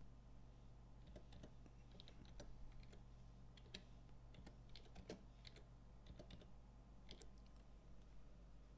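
Faint typing on a computer keyboard: an irregular run of quick key clicks that begins about a second in and stops about seven seconds in.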